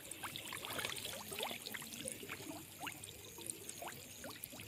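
Water trickling and gurgling, with a constant patter of small drip-like plinks and bubbling.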